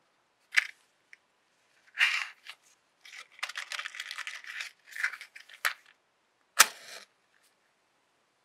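Cardboard matchbox handled: clicks and scratchy rustling as the tray is slid open and a wooden match is taken out, then a single sharp scrape as the match is struck on the side of the box and catches.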